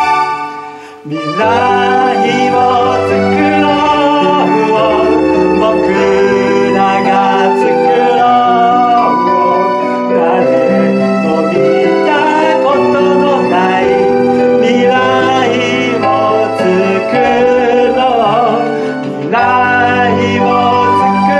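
Live band music, with electric keyboard and acoustic guitar accompanying a man singing into a microphone. The music drops away briefly about a second in, then carries on.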